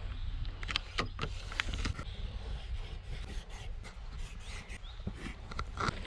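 Wind rumbling on the microphone, with a scattered series of sharp clicks and rattles.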